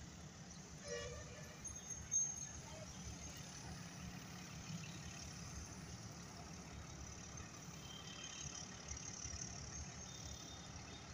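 Diesel locomotive engine running with a faint, steady low rumble as the train approaches slowly. A single sharp click sounds about two seconds in.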